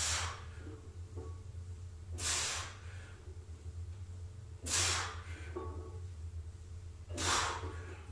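A lifter's sharp, hissing breaths during a set of front squats with a loaded barbell, one about every two and a half seconds, four in all, in time with the reps. A steady low hum runs underneath.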